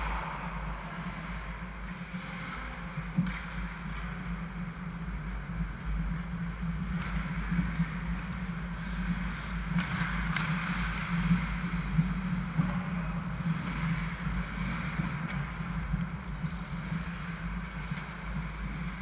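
Ice hockey play in an indoor rink: skates scraping on the ice over a steady low hum, with a few sharp clacks, the loudest about twelve seconds in.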